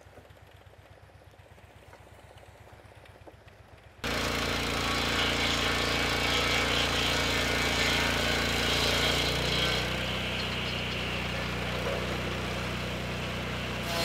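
A faint engine idling in the distance, then about four seconds in a sudden jump to a Lucas Mill swing-blade sawmill's petrol engine running loud and steady, its circular blade spinning and beginning its cut into the log.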